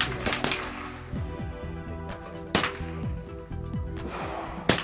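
.22 LR rifle shots: several sharp cracks, the three loudest about two seconds apart, with a couple of fainter ones just after the first. Steady background music plays underneath.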